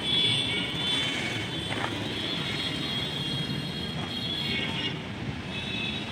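Steady background vehicle rumble with a high, steady whine over it that fades out about five seconds in.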